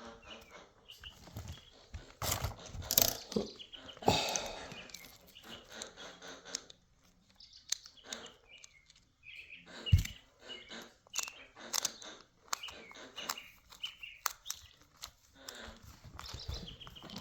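Clicks, scrapes and knocks of hand work on a Traxxas Slash RC truck as a wheel is fitted, with one sharp knock about ten seconds in. Birds chirp now and then.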